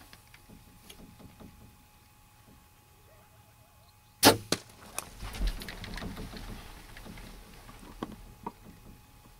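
A bow shot at a whitetail buck about four seconds in: a single sharp crack from the bow and the arrow hitting the deer. It is followed by a few more knocks and about three seconds of the hit buck kicking and thrashing in dry brush and grass, fading toward the end.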